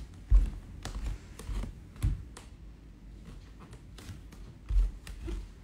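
Bare feet stepping on a wooden plank floor: a few irregular soft thumps and taps. The strongest come just after the start and again about a second before the end.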